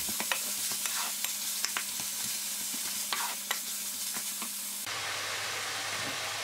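Minced meat and chopped onion sizzling in a nonstick frying pan, stirred with a wooden spatula that scrapes and taps against the pan.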